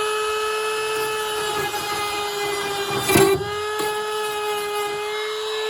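Handheld high-speed rotary tool running at full speed with a steady high-pitched whine, with a brief harsh burst about three seconds in.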